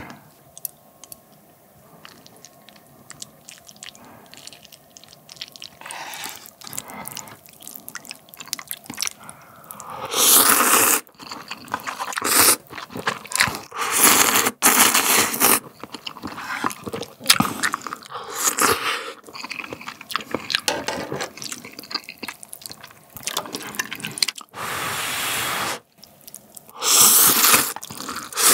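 Close-miked eating of spicy instant ramen with a soft-boiled egg: faint small clicks and chewing at first, then from about ten seconds in, loud wet slurps of noodles and soup, each a second or two long, repeated several times.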